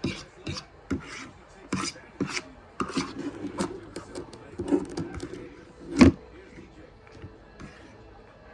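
Spaghetti being eaten close to the microphone: a run of irregular clicks and scrapes, the loudest about six seconds in, dying away after about six and a half seconds.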